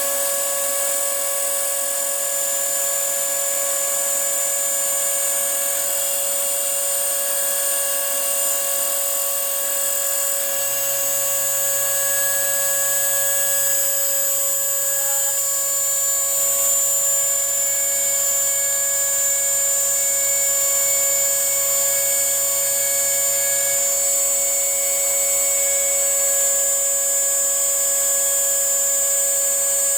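Homemade CNC router milling a copper-clad printed circuit board: the small spindle with its carbide bit runs with a steady whine of several fixed tones. A lower motor hum steps up about ten seconds in and changes again past twenty seconds, as the stepper-driven axes move.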